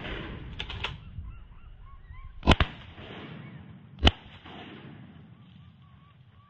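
A flock of whistling ducks calling with short, repeated whistles as it passes overhead. Gunshots crack about two and a half seconds in (two in quick succession) and again about four seconds in.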